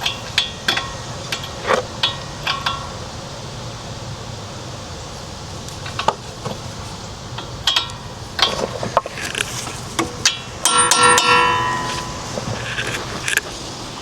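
Steel sockets and hand tools clinking and knocking at irregular intervals, with a longer ringing metal clang about three-quarters of the way through.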